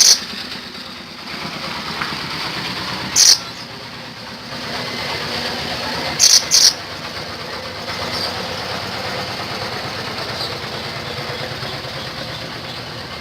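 Siri-siri songbird giving short, sharp, loud high-pitched calls: one about three seconds in and a quick pair a little past the middle, with a few faint notes later, over a steady background rumble of traffic.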